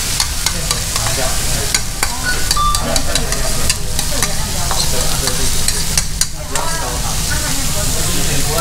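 Batter and shredded cabbage sizzling on a hot tabletop griddle as batter is poured into the centre of the cabbage ring, a steady hiss with scattered sharp clicks and pops.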